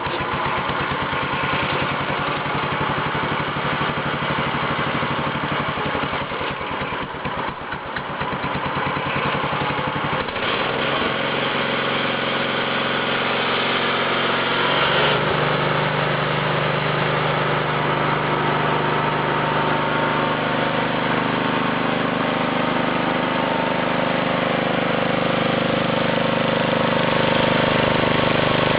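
Engine of a Norton concrete saw running just after starting, rough and pulsing for the first ten seconds or so, then settling into a steadier, even pitch from about fifteen seconds in.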